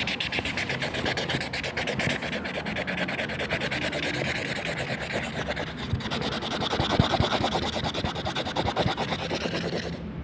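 Brush-pen tips scratching on paper in rapid back-and-forth colouring strokes, a dense run of quick rasps.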